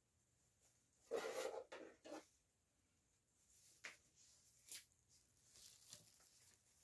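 Mostly quiet room with a brief stretch of rubbing and rustling about a second in, then two short light clicks a little past the middle.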